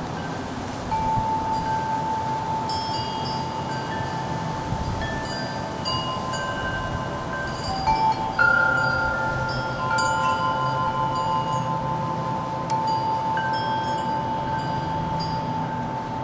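Wind chimes ringing: several clear tones struck one after another and left to ring on over each other, over a low steady rumble.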